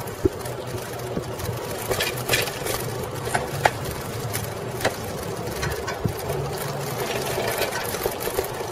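Ride noise from a Coker Monster Cruiser bicycle with 36-inch tyres rolling over pavement: a steady rolling hum with sharp clicks and rattles from the bike now and then.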